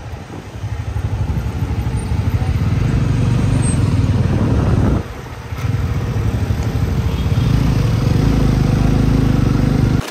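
Motorcycle engine running loud and close with a fast, pulsing rumble. It drops away briefly about halfway through, comes back, and cuts off suddenly near the end.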